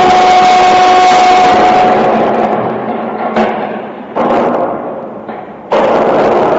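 Crane engine running with a steady whine. It fades after about two seconds, then cuts back in abruptly twice near the end.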